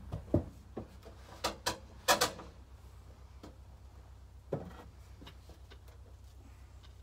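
A log being turned on a sawmill bed with a cant hook: a string of short wooden knocks and clunks as the log and the tool's handle shift on the steel bed, the loudest a pair about two seconds in and another about four and a half seconds in.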